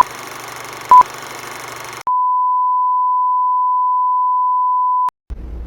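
Electronic countdown beeps: two short beeps a second apart over a hiss, then one long steady beep of about three seconds at the same pitch, which cuts off suddenly.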